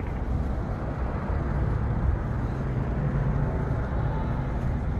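Wind buffeting the microphone outdoors: a steady low rumble with no distinct events.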